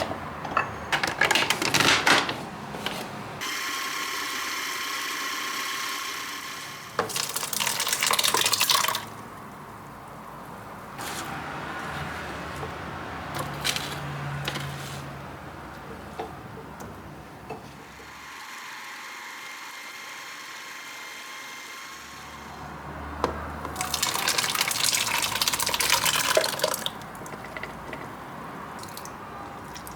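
Water running and splashing in several separate spells of a few seconds each, loudest about a second in, eight seconds in and twenty-four seconds in.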